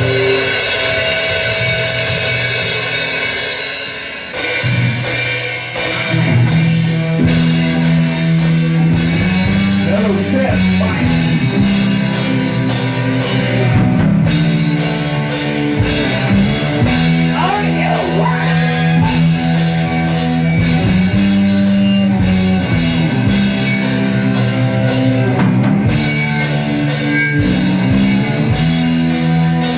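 Live rock band playing loudly with drum kit and guitars. The sound thins briefly about four seconds in, then the full band comes back in.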